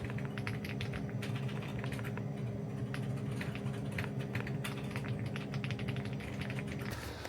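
Typing on a computer keyboard: quick, irregular key clicks, over a steady low hum that stops shortly before the end.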